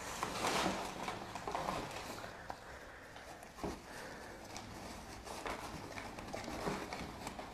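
A dog rooting with its nose through crumpled newspaper in a cardboard box: irregular rustling and crinkling of paper with scattered light knocks, one a little stronger about halfway through.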